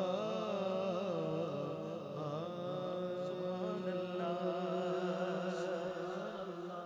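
Unaccompanied naat recital: a man's voice holds a long, ornamented vowel that wavers up and down in pitch over a steady drone of backing voices. It fades near the end.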